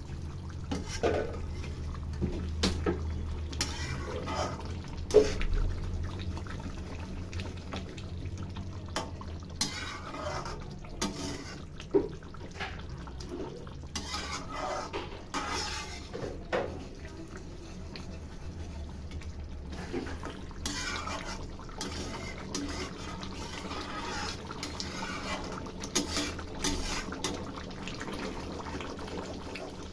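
Kitchen cooking sounds: a metal spoon or ladle clinking and scraping in a pot, with liquid being poured and stirred in, over a steady low hum.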